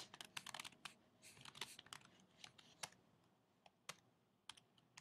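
Typing on a computer keyboard: a faint, uneven run of keystroke clicks that thins out in the second half.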